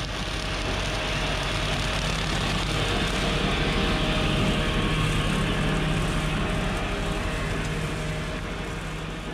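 New Holland TS100 tractor's diesel engine running steadily as the tractor drives past, getting louder as it approaches and fading as it moves away.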